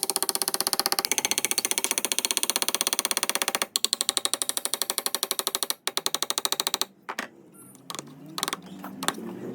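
A power tool running in rapid, even, clicking strokes, in three bursts: a long run of about four seconds, then two shorter ones, stopping about seven seconds in, followed by a few faint clicks.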